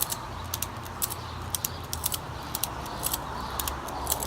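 Ratchet strap's ratchet clicking as its handle is pumped up and down to tighten the strap, a cluster of sharp metal clicks about twice a second.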